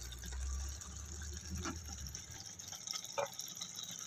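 Thick masala gravy with whole eggplants simmering in a pot, bubbling softly over a steady hiss, with two short pops from bursting bubbles. A low rumble is heard in the first second and a half.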